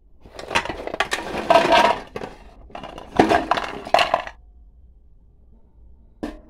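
Crisp baked cookies slid off a metal baking tray into a bowl: a dry clatter and clinking of cookies and tray for about four seconds, then it stops, with a short knock near the end.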